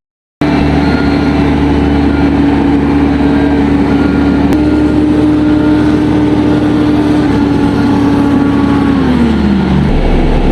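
Heavy construction machine's diesel engine running steadily at high revs, then winding down in pitch about nine seconds in. The sound begins just after a split-second dropout.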